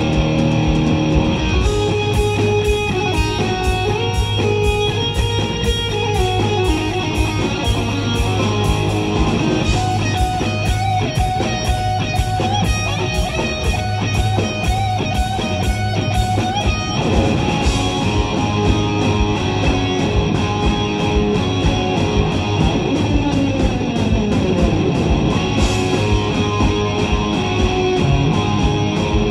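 Live rock band playing an instrumental: an electric guitar lead over drums, bass guitar and keyboards, with the guitar making long falling pitch slides about two thirds of the way through.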